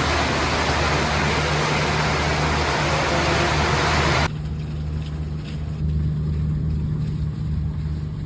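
Heavy rain, a loud, even hiss that cuts off abruptly about four seconds in to a softer, quieter rain with a few light ticks. A steady low hum runs underneath throughout.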